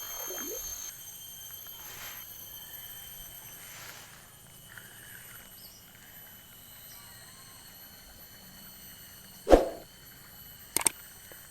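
Steady chorus of high, thin insect calls, several tones held together. About nine and a half seconds in comes one sharp loud thump, followed a second later by a couple of short clicks.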